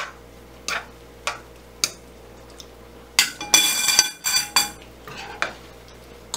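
A utensil knocking and scraping against a frying pan while the rice cakes and noodles are stirred: a few light taps, then a burst of clattering with a ringing clang about three seconds in.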